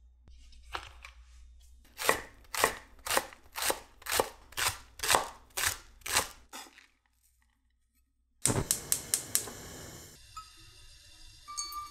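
Kitchen knife chopping green onion on a wooden cutting board, about two even chops a second. Near the end a gas stove's igniter clicks rapidly and the burner lights with a hiss.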